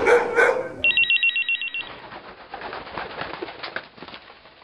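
A telephone ringing: a fast, high electronic trill that sounds for about a second. It starts just after the fading tail of a loud noisy burst and is followed by a fainter crackling, rustling noise that fades away.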